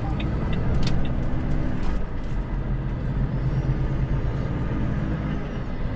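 Volvo truck's diesel engine running as the truck drives, heard inside the cab as a steady low drone, with a brief dip a little after two seconds in. A single sharp click about a second in.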